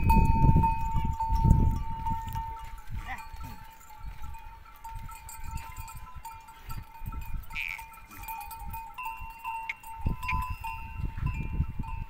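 Goat neck bells ringing and clinking steadily from a herd of goats. Low gusts of wind rumble on the microphone, loudest at the start and again near the end.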